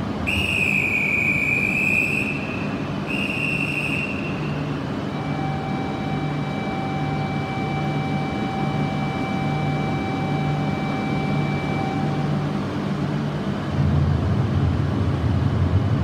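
A platform whistle blown in two blasts, a long one and then a shorter one, as a Shinkansen departure signal. A steady electronic tone follows for about seven seconds over the low pulsing hum of an E6-series Komachi Shinkansen standing at the platform, and the hum grows louder near the end.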